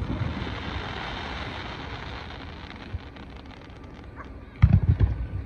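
Aerial fireworks: the rumble of a burst fades away over the first couple of seconds, then near the end another loud burst comes as several bangs in quick succession.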